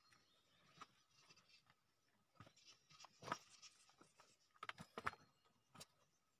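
Faint scuffs and knocks of people scrambling down a rocky slope on foot and hand. There is a louder knock about three seconds in and a quick cluster of knocks around five seconds.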